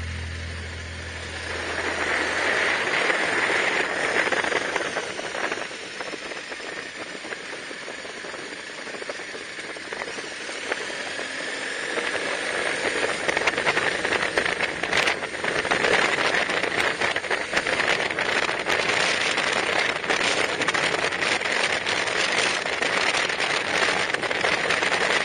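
A vehicle driving on a rough gravel forest road: a steady rush of tyre and road noise full of small crunches and rattles, growing louder about two seconds in.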